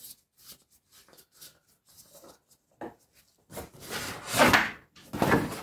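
Oil filler cap being twisted off a Toyota Camry's valve cover: faint plastic clicks and rubs, followed by two louder scraping rubs about three and a half and five seconds in.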